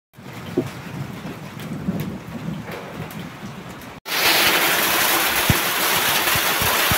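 A low outdoor rumble for about four seconds, then a sudden change to a loud, dense hiss of heavy rain mixed with hail pelting grass and bare ground, with a few low thumps.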